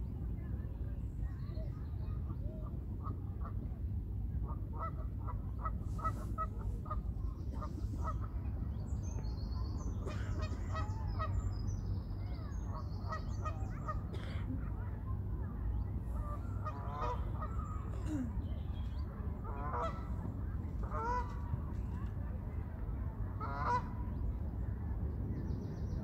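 Waterbirds calling in bouts of short, repeated calls, several a second, broken by pauses. Small birds chirp high and thin in the middle, over a steady low background rumble.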